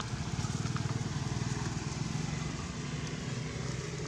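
A small engine running steadily with a fast, even low pulse.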